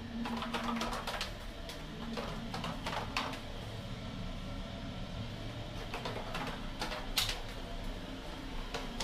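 Footsteps going down a stairwell and along a corridor, a dozen or so irregular knocks and steps over a steady low hum.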